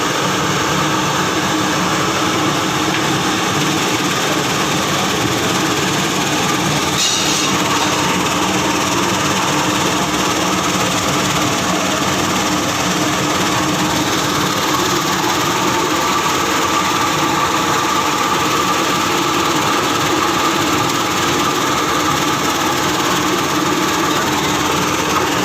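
Plastic scrap washing machine running: a steady, unbroken mechanical hum of motor and drive, with a brief light tick about seven seconds in.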